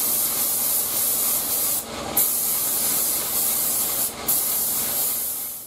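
Vevor compressed-air spray gun hissing steadily as it sprays primer surfacer, with two brief breaks about two seconds and four seconds in.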